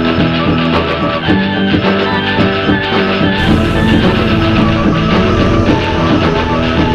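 Background music: a rock song with guitar and a steady drum beat.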